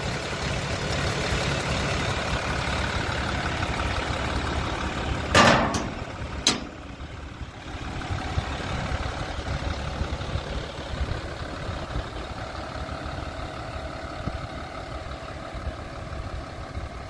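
Isuzu FRR truck's diesel engine idling steadily, with two short knocks about five and a half and six and a half seconds in, after which the engine sounds quieter.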